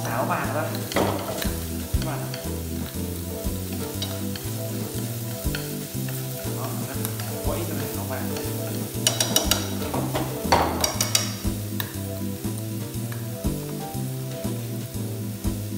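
Minced lemongrass, chili and garlic sizzling in hot oil in a nonstick frying pan, stirred with a wooden spatula that scrapes and clicks against the pan, most busily about nine to eleven seconds in. Background music with a low bass line plays underneath.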